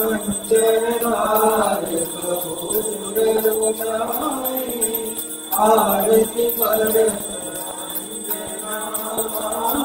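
Hindu devotional hymn sung in phrases, accompanied by small bells jingling and ringing continuously.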